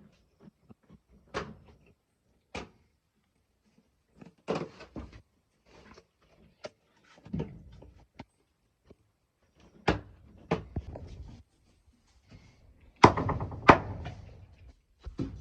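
A series of irregular knocks and thumps, spaced about a second apart, with the two loudest close together near the end.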